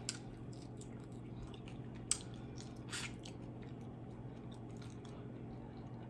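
A person chewing fried tilapia close to the microphone, with a few short crisp clicks about two and three seconds in, over a steady low hum.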